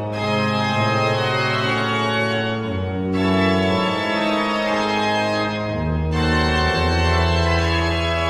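Organ playing slow, sustained chords over a deep held bass, the harmony changing about every three seconds.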